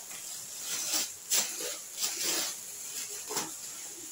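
Plastic packaging rustling and crinkling in a handful of short, irregular bursts as it is handled.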